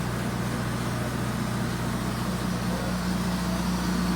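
Welding machine running with a steady low hum and a hiss over it.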